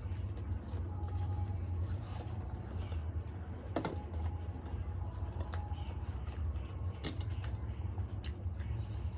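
Close-up eating sounds: chewing and small wet clicks and smacks as soft paratha with potato curry is scooped and eaten by hand, with two sharper clicks about four and seven seconds in. A steady low hum sits under it all.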